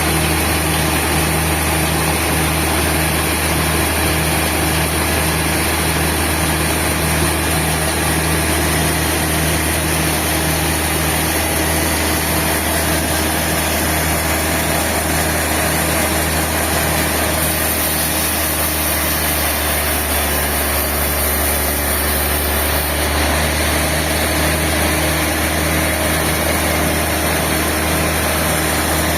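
Sawmill machinery running steadily: a continuous low engine-like hum with a faint regular pulse.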